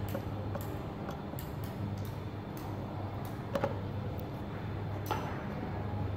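Small clicks and scrapes of a screwdriver turning a terminal screw on a plastic 8-pin relay socket to clamp a wire. The clearest clicks come about three and a half and five seconds in, over a steady low hum.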